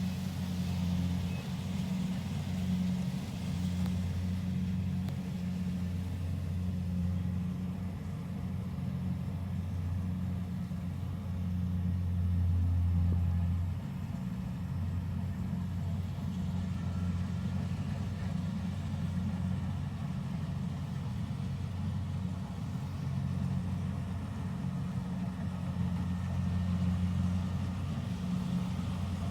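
Combine harvester engine running steadily with a low drone, swelling louder for a few seconds near the middle and dropping back suddenly.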